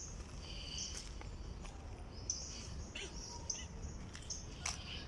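Birds chirping, short high calls repeated every second or so, over steady low outdoor background noise, with a few faint clicks.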